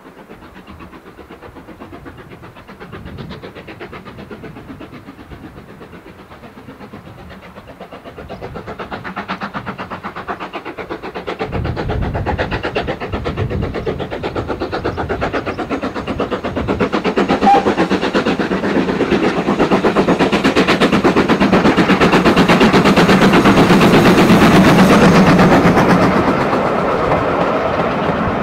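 GWR 2-8-0T steam tank engine No. 4277 'Hercules' approaching with a passenger train, its exhaust beats growing steadily louder. The sound is loudest as the engine passes, then settles into the coaches rolling by with a clickety-clack near the end.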